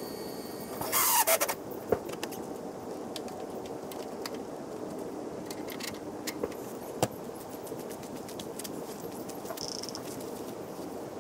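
Camp setup gear being handled beside a travel trailer: a loud metallic rattling clatter about a second in, then a few scattered clicks and knocks, over a steady low background noise.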